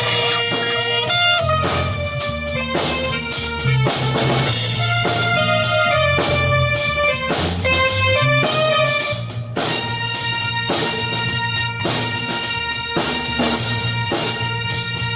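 Rock band playing live: an instrumental stretch of a song, with sustained melody notes over a steady drum beat and bass, and no singing.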